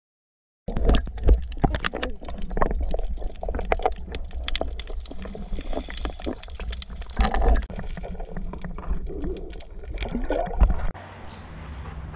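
Water splashing and gurgling around a camera held at and under the surface while golden retrievers swim, with many sharp knocks and a strong low rumble. It starts abruptly about a second in and drops to a quieter steady background near the end.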